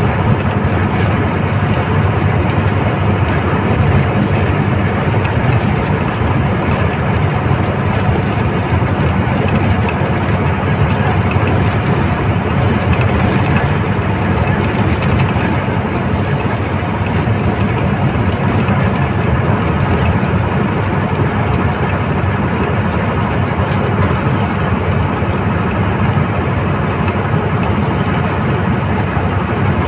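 Old Tata bus's diesel engine running steadily under way, a constant low drone heard from inside the bus.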